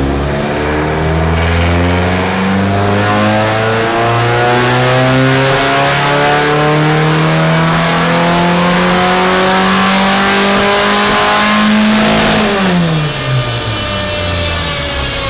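Race car engine on a chassis dyno during a power run, its revs climbing steadily under load for about twelve seconds. Then the throttle is shut and the revs fall away sharply, with a lower tone winding slowly down afterwards.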